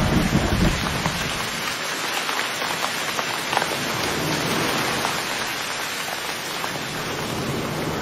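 Steady rain falling, a dense hiss dotted with the ticks of individual drops striking. A low rumble dies away within the first second.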